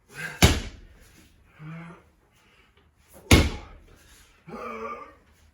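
A 40-pound slam ball thrown down hard onto the floor, twice, about three seconds apart, with short effortful grunts between the slams.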